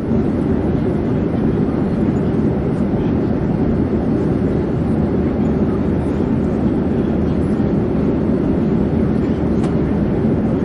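Airplane in flight: a steady, unbroken low rumble of engine and airflow noise.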